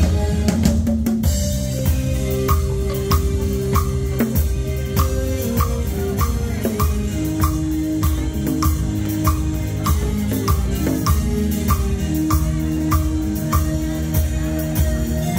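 Live band music: a drum kit keeps a steady beat about twice a second under long held keyboard chords and a bass line.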